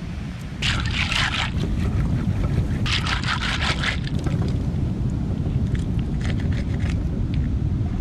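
Seawater swishing and splashing in two rushes, about a second and about three seconds in, over a steady rumble of wind and surf, as the catch is rinsed of sand in the sea. Light scraping clicks follow near the end.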